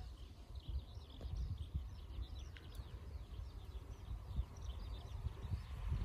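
Wind buffeting the microphone in uneven gusts, with small birds chirping and twittering throughout.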